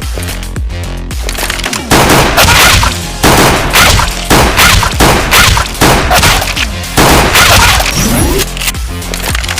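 Background music with a heavy bass and loud sharp hits about once a second, with bangs like gunfire mixed in.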